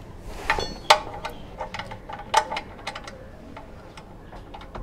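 Uneven metallic clicks and light clinks as the engine oil-pan drain plug is threaded back in and tightened by hand.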